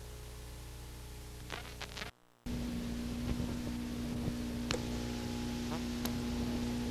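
Analog videotape audio noise at an edit between recordings: hiss with a few clicks, a brief dropout about two seconds in, then a steady electrical hum with scattered crackles.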